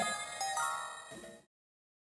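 Background music of short, high, stepping notes that fades and ends about one and a half seconds in.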